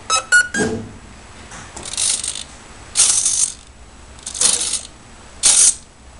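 A hand-built RC airboat giving off short mechanical whirring bursts, about five of them roughly a second apart, after a quick run of clicks near the start.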